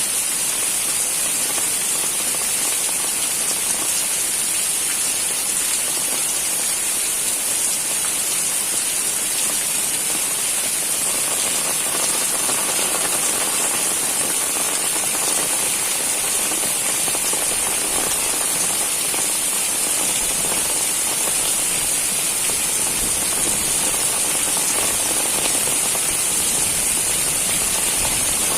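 Heavy rain pouring steadily, a dense even hiss of rainfall.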